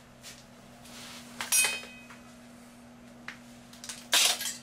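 Metal hand tools clinking on a tiled floor: one ringing metallic clink about a second and a half in, a faint click later, and a louder clatter near the end as a pipe cutter is picked up.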